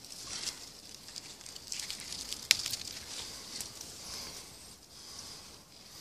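Rustling of hazel leaves and twigs as a hand pushes through the bush searching for nuts, with many small crackles and one sharp click about two and a half seconds in.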